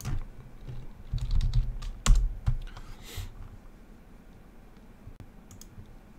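Typing on a computer keyboard: a quick run of key clicks and desk knocks, the loudest knock about two seconds in, then a few faint clicks.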